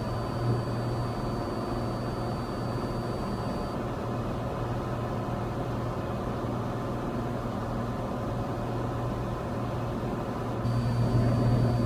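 Cessna 182's engine and propeller droning steadily in flight, as heard in the cockpit. A faint high whine drops out about four seconds in and returns near the end, when the drone grows slightly louder.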